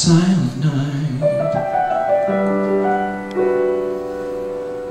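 Male voice singing a ballad phrase to grand piano accompaniment. The voice stops about a second in, and the piano plays on alone in slow, held chords.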